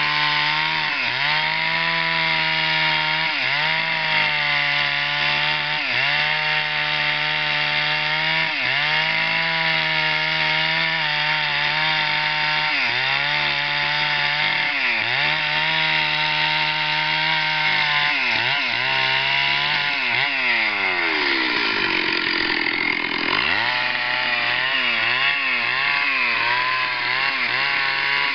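Stihl chainsaw's two-stroke engine running at high revs, its pitch dipping briefly every couple of seconds. About twenty seconds in it slows sharply, then revs back up.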